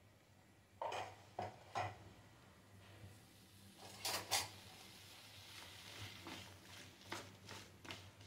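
A spoon and spatula knocking and scraping against a metal kadai while stirring raw pumpkin cubes: three light clanks about a second in, two sharper knocks around four seconds, and a run of quicker taps near the end, over a faint hiss.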